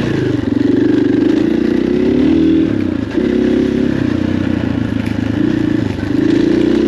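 KTM 500 EXC's single-cylinder four-stroke engine pulling the dirt bike along a trail, its revs rising and falling as the throttle is rolled on and off, with short drops about three and six seconds in.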